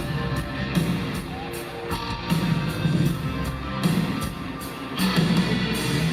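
Live rock band playing an instrumental passage: electric guitars over a steady drum beat, with the drum hits landing about twice a second.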